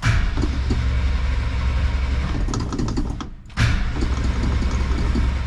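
1965 Ford Falcon engine running steadily just after starting on the first try, having sat a couple of days. The sound fades and breaks off briefly about three and a half seconds in, then the same steady running picks up again.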